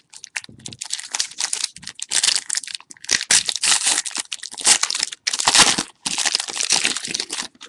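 A trading card pack's plastic wrapper being torn open and crinkled in a run of crackles, which stops suddenly near the end.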